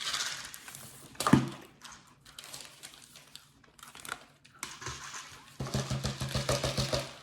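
Food packaging crinkling and rustling close to the microphone, with a sharp click a little over a second in. Near the end a fast, even pulsing with a low hum sets in.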